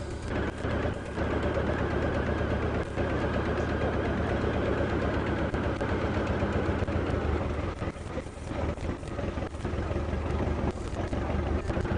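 Boat engine running steadily, a continuous low drone under a rushing noise.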